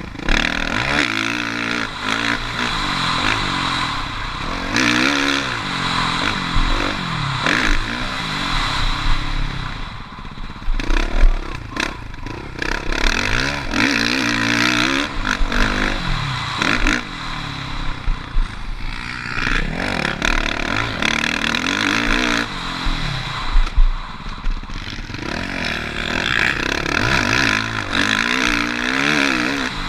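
Suzuki RM-Z450 four-stroke motocross bike ridden hard on a dirt track, its engine revving up and falling off over and over through the gears and corners, with rattling and scraping from the bike over the rough ground.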